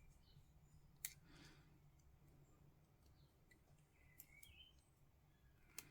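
Near silence with two faint clicks, one about a second in and one near the end, from small plastic miniature parts being handled, and a few faint bird chirps in the background.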